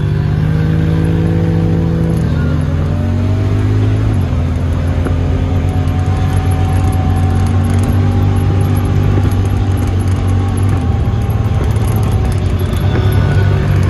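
Side-by-side UTV engine running under way, heard from inside the vehicle. Its pitch dips and then climbs over the first few seconds and holds fairly steady after that.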